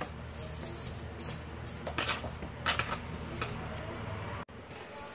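Soft, scattered pats and taps of hands pressing dough balls flat on a plastic chopping board, over a steady low hum.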